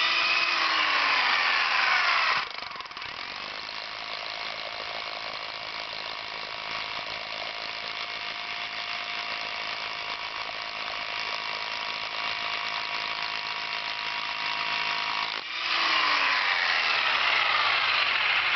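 Milwaukee Thunderbolt rotary hammer drilling into aggregate concrete. The motor pitch sags as it loads up at the start, the tool then runs quieter and steady for most of the time, and it goes loud again with a falling pitch near the end.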